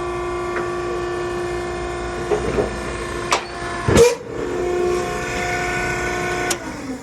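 Hydraulic power unit of a Maren baler running with a steady whine as the ram is lowered, with a few clicks and a heavy clunk about four seconds in. Near the end a click comes, and the whine falls away as the motor and pump are switched off and spin down.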